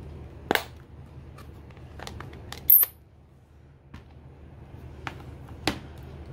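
Stampin' Up! ink pad's plastic case handled and opened: a series of light clicks and knocks, with one sharp, loud snap a little before halfway. A low steady hum runs underneath.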